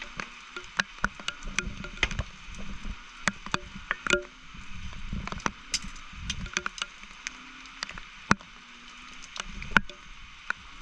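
Footsteps rustling and crackling through dry grass and twigs, with many scattered sharp clicks and snaps, over a steady high chorus of calling frogs and insects.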